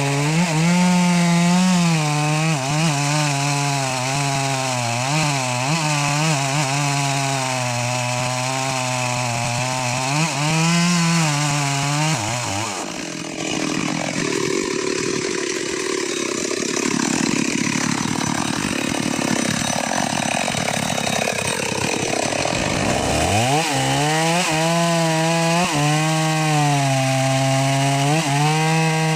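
Two-stroke chainsaw running at high revs while cutting, its pitch wavering as the chain loads in the wood. About twelve seconds in the engine note drops away for around ten seconds. It then revs sharply back up to full speed and keeps cutting.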